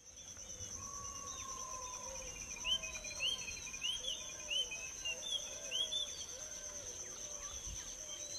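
Countryside ambience: several birds chirping and whistling over a steady, high insect trill. A run of quick rising chirps repeats about twice a second through the middle.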